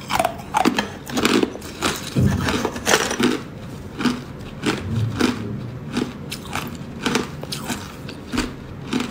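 Hard clear ice being bitten and chewed, with crunching and cracking at about two or three bites a second. The crunches are loudest in the first three seconds and then go on more evenly.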